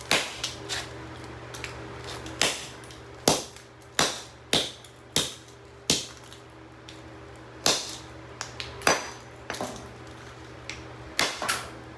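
Hammer repeatedly smashing a Legrand Pass & Seymour GFCI receptacle: over a dozen sharp, irregular blows, some in quick pairs, as the outlet's housing breaks apart.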